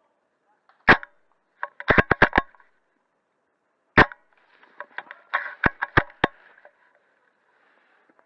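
Airsoft guns firing: a single sharp shot about a second in and another at about four seconds, with a quick run of five shots or clicks in between and a looser run of clicks just before six seconds.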